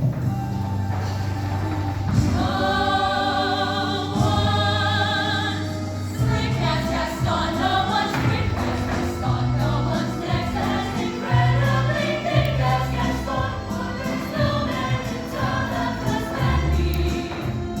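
High school choir singing over a bass accompaniment: a long held chord with vibrato about two seconds in, then a quicker, busier passage.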